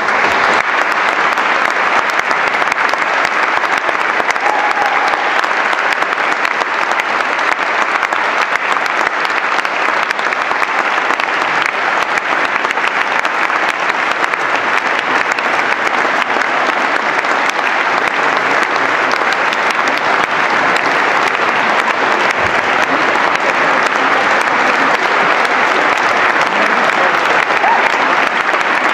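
Audience applause, swelling up at the start and then going on steadily.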